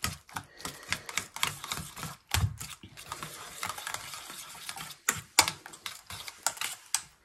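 Wire whisk beating eggs in a stainless steel bowl: a rapid, irregular clatter of the wires tapping against the steel.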